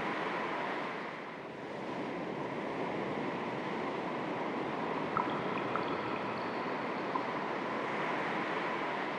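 Gentle sea waves lapping, a steady wash that eases slightly about a second and a half in and swells again. A few faint, brief high chirps sound about five to seven seconds in.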